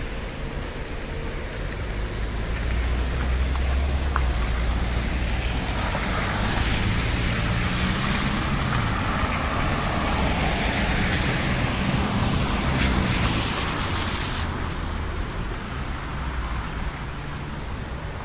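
City street traffic: motor vehicles driving past, with engine rumble and tyre noise that swells about two seconds in, stays loudest through the middle and eases off near the end.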